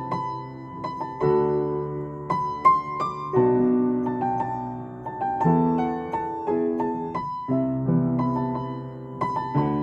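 Piano played four hands: a slow, gentle melody in the upper notes over sustained chords in the bass, each note struck and left to ring.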